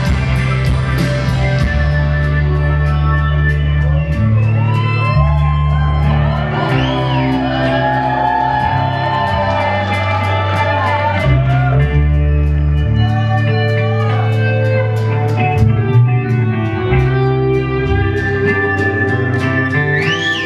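Rock band playing live: a lead electric guitar with bending, gliding notes over sustained bass, a steady drum beat and keyboards.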